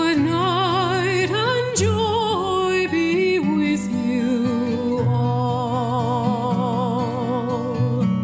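Background music: a slow melody with strong vibrato over held low notes.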